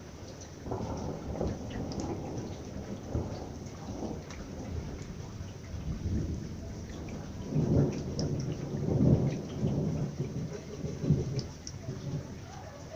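Thunder rolling in a long rumble that swells loudest about eight to nine seconds in, over steady rain with scattered drops ticking.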